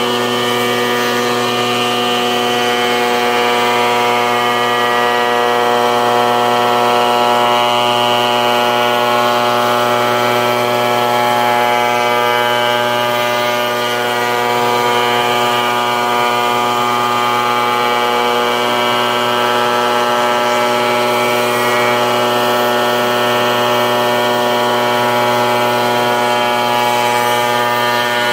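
Shop Fox shaper running steadily while a full-round wooden casing is milled on it, giving a constant, unchanging hum made of many evenly spaced tones.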